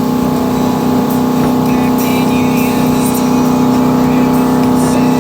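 Motorboat engine running steadily under way, a constant low drone with no change in pitch.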